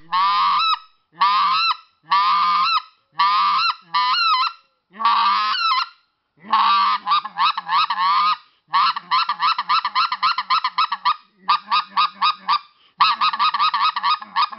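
Goose call blown by mouth with cupped hands, making the basic honk: air and voice pushed into the call with added pressure. About six separate honks come first, then faster strings of quick notes, several a second.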